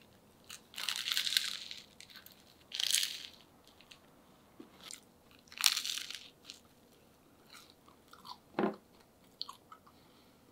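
Crunching of a crisp tomato spring-roll sandwich: three loud crackly crunches about a second, three seconds and six seconds in, with small crackles between them and a short dull knock near the end.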